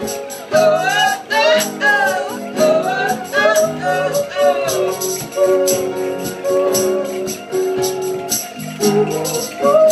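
A woman sings along to a rhythmically strummed acoustic guitar in a live performance. The singing wavers in pitch and is strongest in the first half.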